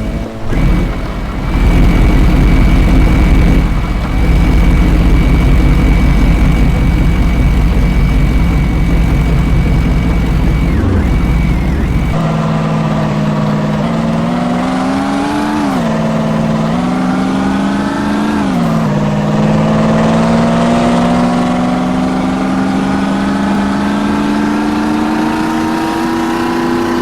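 Turbocharged diesel engine with its turbo whistling. A steady high whistle rides over a deep engine drone for about the first twelve seconds. Then the engine note rises and drops back twice and climbs steadily for the rest.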